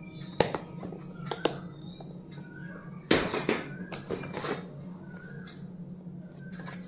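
Small stationery items being handled: a few sharp clicks and taps, with a louder clatter and rustle of packaging about three seconds in.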